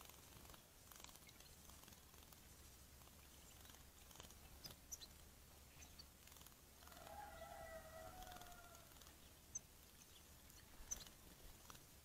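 Faint garden ambience: a few soft ticks and light splashes as European goldfinches bathe in a shallow water dish, with one wavering call lasting about two seconds a little past the middle.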